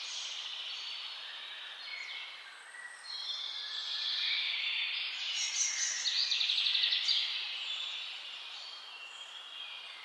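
Several birds singing and calling over one another, with high chirps and short whistles. A fast trill of rapidly repeated notes is the loudest part, from about five and a half to seven seconds in.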